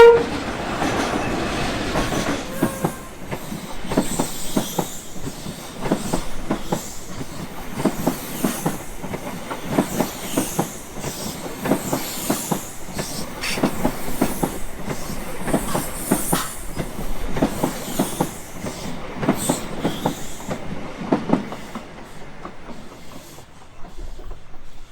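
Belmond Grand Hibernian luxury sleeper train passing at speed: a fast, steady run of wheel clicks over the rail joints as the carriages go by, with some high wheel hiss, fading out near the end.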